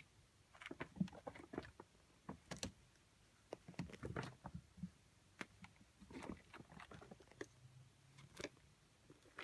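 Faint, irregular scuffling, rustling and light clicks of Ragdoll kittens pouncing and scrambling on a rug and over clothing.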